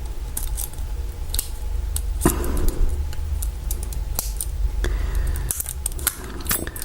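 Steel lock pick and tension wrench working the pins inside a Brinks laminated padlock during single-pin picking: a run of small metallic ticks and clicks, with two sharper clicks about two and five seconds in, over a low steady hum.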